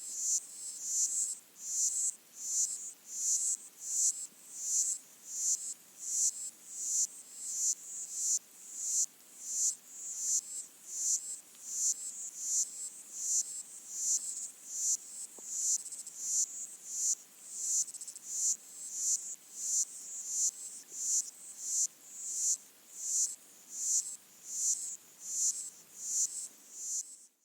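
Underwater chorus of pygmy water boatmen (Micronecta) stridulating, picked up by hydrophones: a steady rhythm of high, buzzy pulses, somewhat more than one a second, over a faint hiss.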